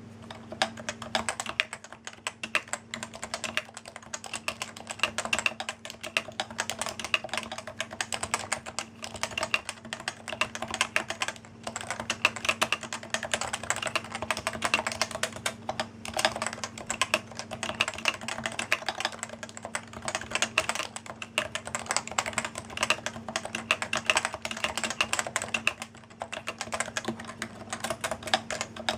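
Fast, continuous typing on a mechanical keyboard, a dense stream of key clicks and bottom-outs with a couple of brief pauses.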